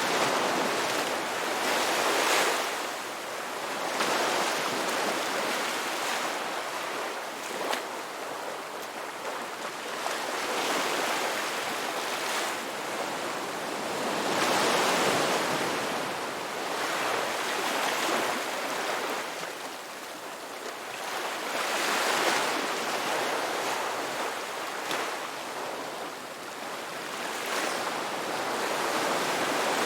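Ocean waves breaking and washing on a shore, a steady hiss of surf that swells and eases every few seconds.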